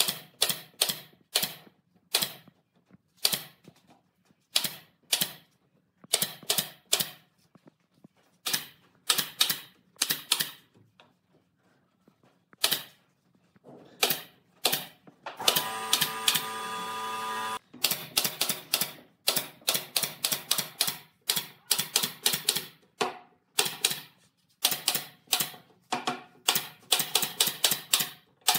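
Pneumatic nail gun firing nails into pine pallet boards, in quick bursts of two to five sharp shots with short pauses between. About halfway through, a steady pitched sound lasts about two seconds.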